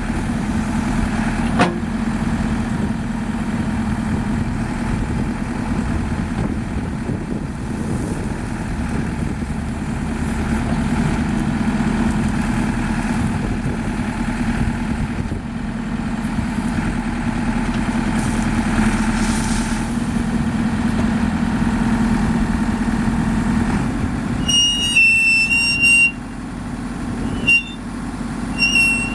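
The JCB 3CX backhoe loader's diesel engine running steadily at idle. Near the end a high-pitched electronic beep sounds for about a second and a half, followed by two short chirps.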